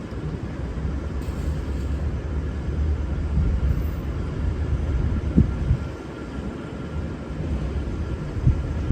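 Low steady rumble of a V/Line VLocity diesel train, with two short knocks about five and eight and a half seconds in.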